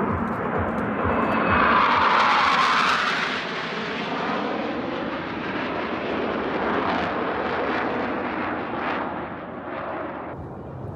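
Military jet aircraft flying past. The engine noise swells to its loudest about two to three seconds in, then eases into a steadier, fainter rush.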